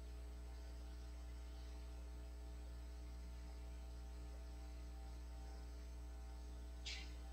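Steady electrical mains hum, a low buzz with a string of faint overtones, and a brief faint hiss near the end.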